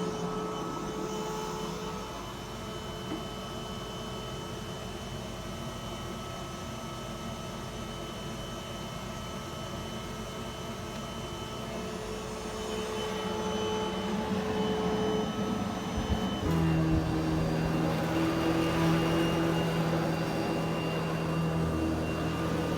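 Eureka Smart Vac vacuum cleaner running with a steady motor hum; about two-thirds of the way through, the hum shifts suddenly to a lower, louder pitch.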